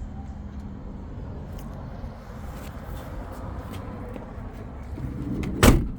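A steady low rumble, then a single loud, sharp thump about five and a half seconds in.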